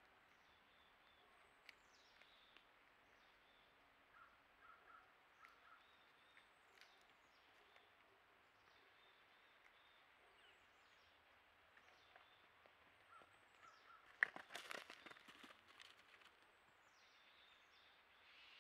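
Quiet forest background with faint, high, quickly falling chirps from small birds repeating every second or two. About fourteen seconds in, a sudden loud crackling burst lasts about two seconds.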